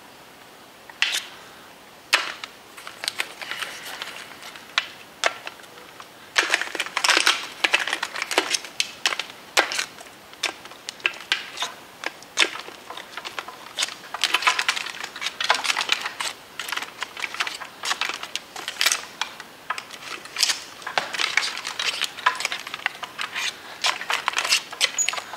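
Irregular sharp clicks and short bursts of light clattering, like small hard objects knocking together, coming in quick clusters.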